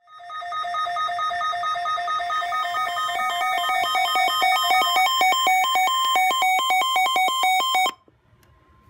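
Electronic emergency alert tone with two buzzy pitches warbling rapidly back and forth. It switches faster after about five seconds and cuts off abruptly near the end. It is the alert signal that leads into a broadcast flash flood warning.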